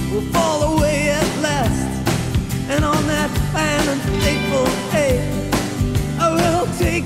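A song playing as background music: a singing voice over a band with a steady beat.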